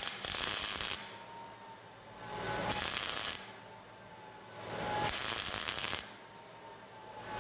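MIG welder laying three short tack welds, each a burst of about a second with pauses between: bridging a gap in steel tube by stacking tacks and letting each puddle freeze before the next.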